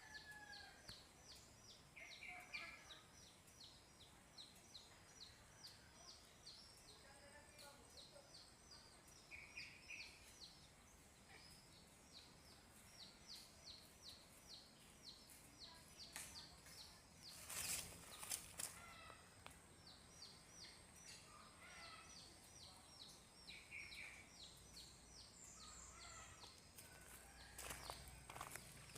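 Faint wildlife chirping: long runs of quick, high chirps repeating about three times a second, with a few lower calls between. A couple of louder knocks come about two thirds of the way through.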